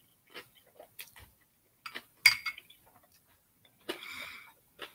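Eating crunchy granola cereal close to the microphone: scattered spoon clicks against a bowl, the sharpest about two seconds in, and a short crunch of chewing about four seconds in.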